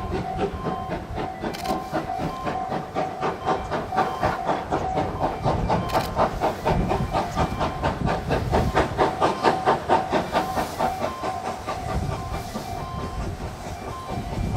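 Steam locomotive running past with hissing steam and a rapid, even rhythm of exhaust beats that swells to its loudest midway and eases off near the end. A steady tone sounds underneath.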